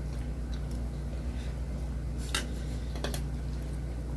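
A spoon clinking against a plate a few times while eating, once about two seconds in and twice more about a second later, over a steady low hum.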